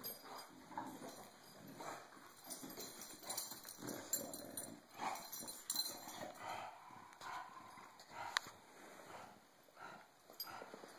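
Two bulldogs play-fighting: irregular short bursts of dog noise and scuffling, with one sharp click a little over eight seconds in.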